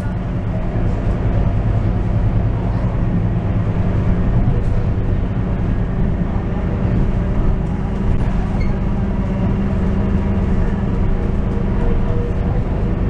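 Scania K230UB bus on the move, heard from inside the passenger cabin: the rear-mounted diesel engine's steady drone mixed with road and body noise.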